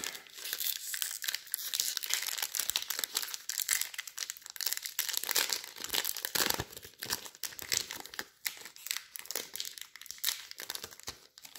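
Crinkly card-pack wrapper being handled and opened, a dense run of irregular crackles and rustles.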